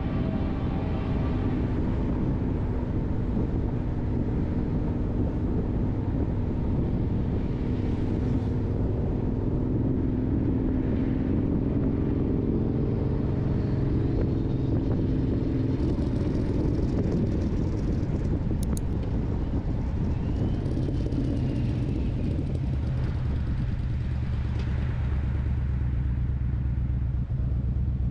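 Car driving on a town street: steady engine and road rumble, with the engine note shifting in pitch partway through and settling into a low steady hum near the end.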